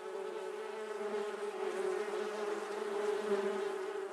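Honeybee buzzing in flight, a steady droning hum.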